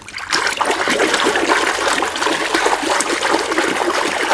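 Water running and splashing steadily over a toy airplane as it is washed.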